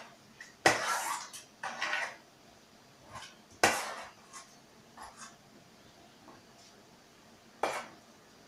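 A spoon scraping and clinking against the sides of a pot while stirring a wet mix of cottage cheese and milk, in irregular strokes; the sharpest knocks come about a second in, near four seconds, and near the end.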